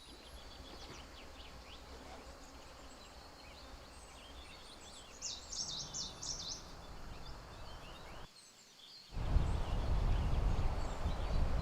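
Lakeside ambience: soft steady background noise with a bird giving a short run of quick high chirps about five seconds in. After a brief drop-out near eight seconds, loud low wind buffets the microphone.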